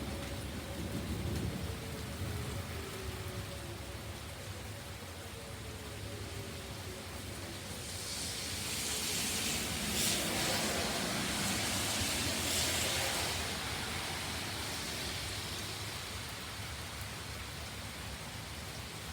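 Distant Whelen outdoor warning siren sounding faintly, its tone sliding lower over the first several seconds, under steady rain. About eight seconds in the rain hiss swells louder for several seconds, then eases.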